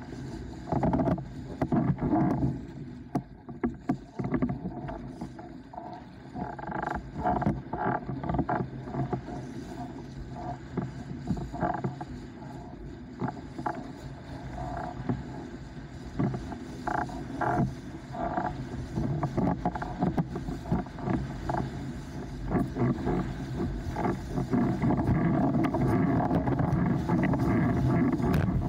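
Starboard 104L S-Type windsurf board sailing over chop: water slapping and rushing against the hull, with wind on the microphone. Irregular slaps run through most of it, and a louder, steadier rush comes in over the last few seconds.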